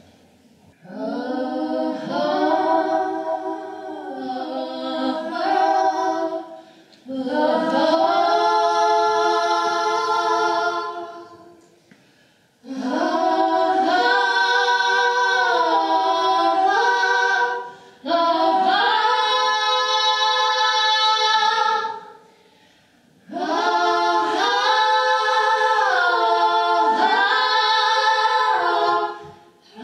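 Women singing a cappella, in five long phrases with short pauses between them.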